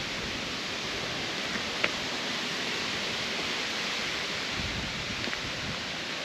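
Steady outdoor background hiss, with a single faint click about two seconds in and a brief low rumble near five seconds.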